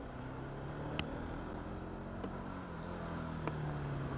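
Bajaj Pulsar 200NS single-cylinder engine running at low revs in slow traffic, with a steady hum that rises a little in the second half, under a wet hiss. Three sharp ticks cut through it, the loudest about a second in.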